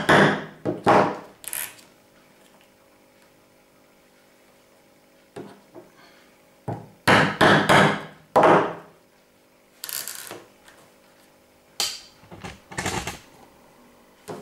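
Hammer whacking a leather hole punch to drive stitching holes through the leather, in clusters of several quick blows, near the start, around the middle and near the end, each cluster making one hole. A lighter knock or two comes between clusters, and a brief scrape near the end as the punch is moved along the edge.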